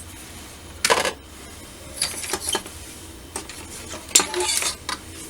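Plastic model kit sprues and parts being handled and set down, clattering and clicking in three short bouts.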